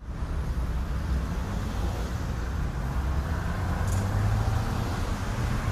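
Steady low rumble of motor vehicle and road noise.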